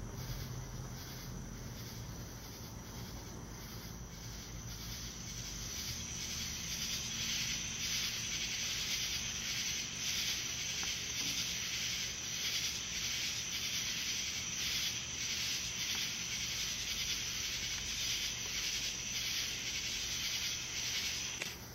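Crickets chirping in a steady, evenly pulsing chorus, which grows a little louder about six seconds in.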